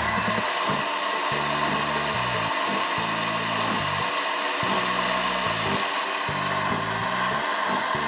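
Siemens EQ.6 plus fully automatic espresso machine frothing milk and dispensing it into the cup: a steady hiss with a low pump hum that cuts in and out several times.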